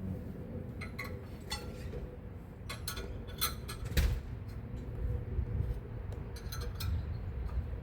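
Hand wrench and tools clinking against metal in irregular clicks and light knocks while motor mount bolts are worked loose, with one louder knock about halfway through.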